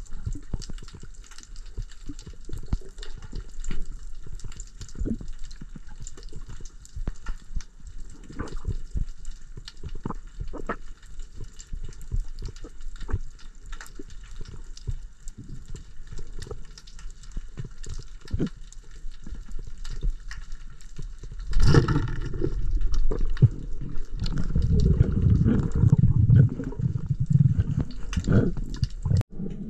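Underwater ambience heard through a camera housing on a rocky reef: a steady hiss with many scattered short clicks and crackles, then, about two-thirds of the way in, a louder low rushing of moving water that lasts several seconds.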